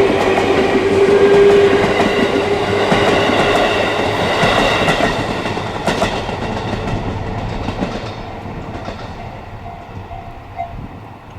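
Electric train on the JR Ryōmō Line passing over a level crossing, its wheels clacking over the rail joints. A steady tone fades out in the first second or two, and the train noise dies away as it moves off.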